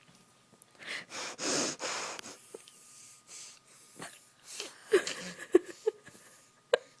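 A pet sniffing and snorting hard through its nose. A long wheezy sniff comes about a second in, followed by a string of short snorts, several with a brief squeak, in the last couple of seconds.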